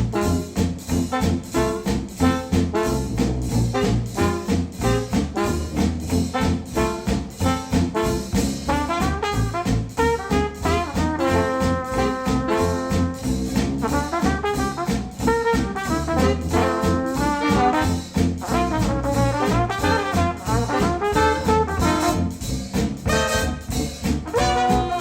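Brass-led, jazz-flavoured music with a steady beat, played back through Wharfedale Denton 80th bookshelf speakers driven by a Sony STR-DG500 receiver.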